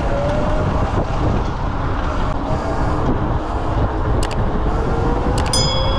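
Wind rushing over a GoPro microphone on a moving electric scooter, with a faint electric-motor whine that slowly rises in pitch as the scooter speeds up.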